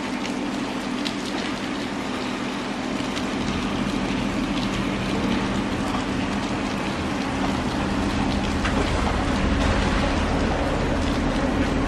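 Steady hiss of light rain on wet pavement, with an electric bus approaching on the wet road and pulling up close. Its low rumble builds over the last several seconds.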